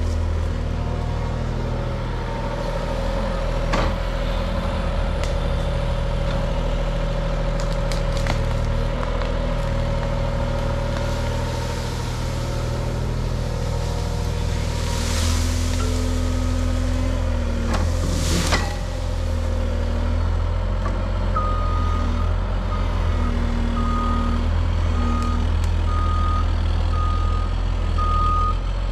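Diesel engines running steadily while a Cat 303.5 mini excavator with a root rake drops a load of brush into a dump truck bed, with two crashes of branches just past halfway. In the last third a backup alarm beeps about once a second.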